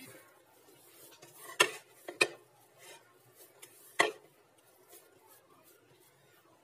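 Ube bread dough being handled on a ceramic plate: soft rubbing and handling, with three sharp knocks of the plate and dough striking down, two close together about a second and a half in and one more about four seconds in.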